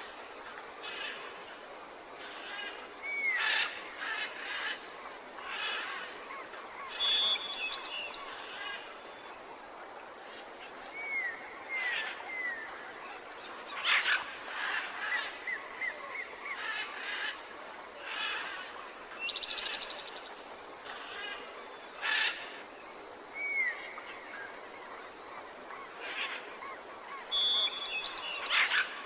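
Tropical rainforest ambience: many birds calling with short whistles, swooping notes and trills over a steady background hiss, with the same sequence of calls coming round again about every 20 seconds.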